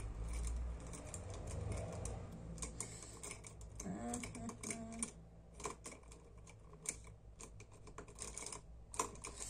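Makeup pencils and small plastic cases clicking and clattering in irregular taps as they are rummaged through, with a brief murmur of voice about four seconds in.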